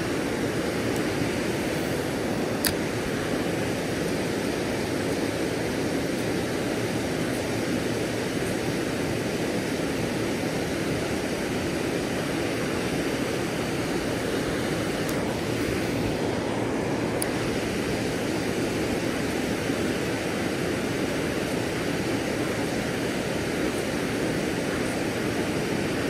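Water pouring over a low dam and rushing through the creek below it, a steady, even rushing noise.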